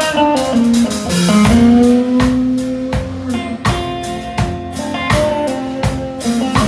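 Live country band playing an instrumental intro, electric and acoustic guitars over a drum kit with steady beats, before the vocals come in.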